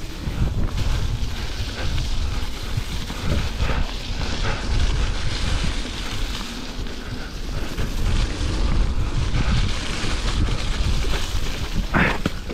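Wind buffeting the microphone over the rumble of mountain bike tyres on a wet dirt trail during a fast descent, with scattered knocks and rattles from the bike.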